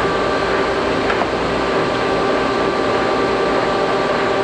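Geminis GE-1000-A engine lathe running steadily with its power feed engaged: an even mechanical hum from the geared headstock and feed drive, with several steady gear-whine tones.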